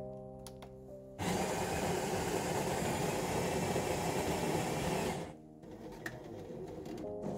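Jura X6 bean-to-cup coffee machine's built-in grinder grinding beans for about four seconds, starting abruptly about a second in and cutting off sharply. This is the first stage of making an espresso, before any coffee flows.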